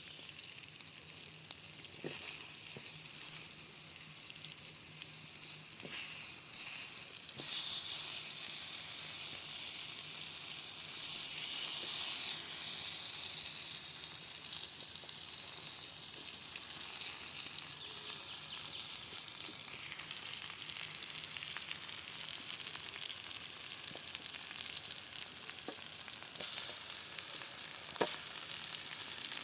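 Vegetables sautéing in a pan over a campfire, sizzling steadily; the sizzle swells a few times and is loudest a little before the middle, with a few sharp clicks along the way.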